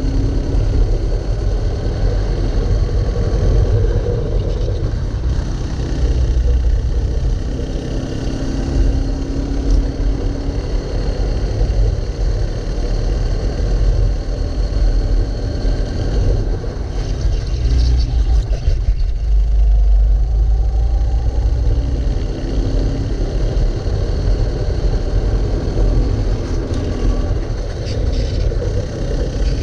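Racing kart engine running at race pace, heard from on board, its pitch rising and falling as the kart brakes and accelerates through the corners, over a constant low rumble.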